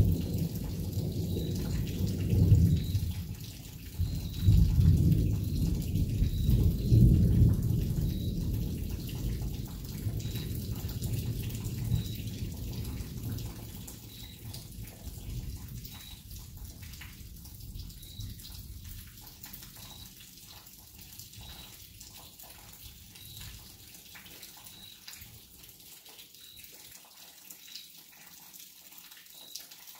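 Rolling thunder over rain: a deep rumble swells several times over the first dozen or so seconds, then dies away. Rain and dripping water carry on alone after that.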